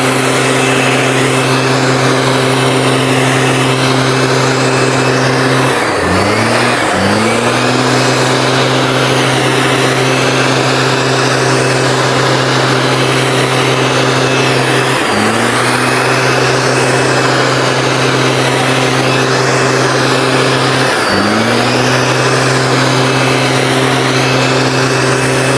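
STIHL SR 5600 backpack mistblower's two-stroke engine running at high speed, with the fan's rushing air. The revs dip briefly and climb back four times: twice close together, then twice more.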